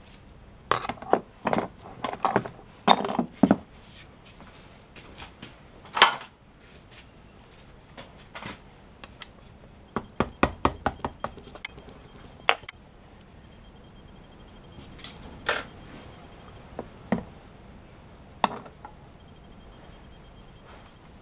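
Hammer tapping a red-handled tool held against a Honda 125 SOHC engine, with metal tools clinking: a quick run of about eight sharp taps about ten seconds in, and scattered knocks and clinks before and after.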